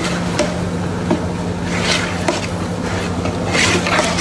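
A long steel ladle stirring thick curry in a large steel pot, with a few scraping swishes, over a steady low hum of kitchen equipment.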